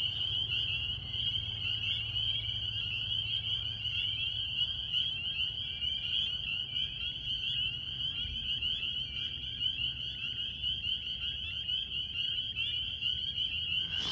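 Chorus of spring peepers: many frogs peeping at once, merging into a continuous high-pitched chorus.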